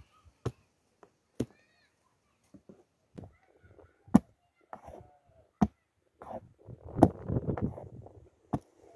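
Sharp single knocks of a pestle striking green olives on a plastic cutting board, cracking them open one at a time, about six blows at irregular intervals of a second or more.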